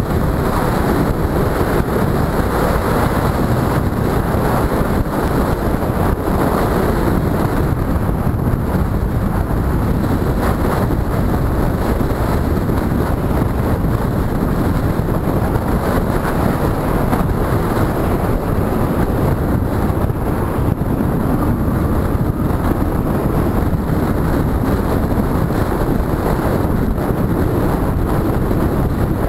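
Steady wind rush over the microphone of a camera on a motorcycle riding at road speed, with the motorcycle's engine and tyre noise underneath.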